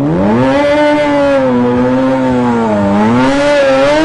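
Sport motorcycle engine revving hard and held at high revs. The pitch sags briefly about three seconds in, then climbs again.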